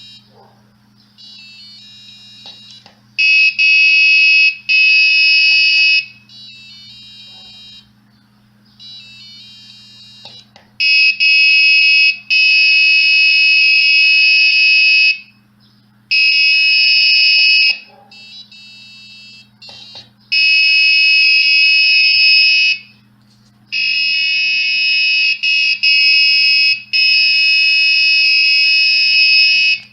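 Arduino-driven buzzer and piezoelectric disc sounding shrill electronic tones, switching back and forth every second or two between a quieter tone and a much louder one as the push button swaps the component in use. A few faint clicks are heard between the blocks.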